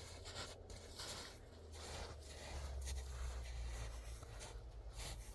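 Irregular rustling and scraping, over a low steady hum.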